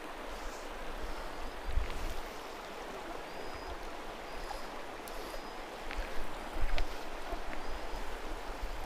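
River water rushing steadily down rapids into a slower glide, an even wash of water noise, with a few dull low bumps.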